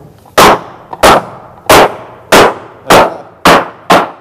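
Hammer driving nails into the wooden planks of a boat hull: a steady run of about seven sharp blows, roughly one every half-second, coming a little faster near the end.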